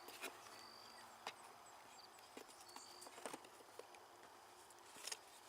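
Near silence with a few faint, scattered clicks and taps from parts of a foam RC flying wing being handled, and two brief faint high tones.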